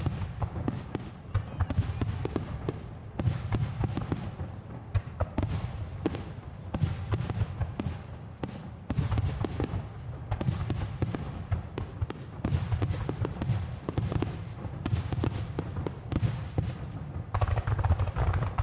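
Aerial fireworks bursting in rapid succession: repeated deep booms with many sharp cracks between them.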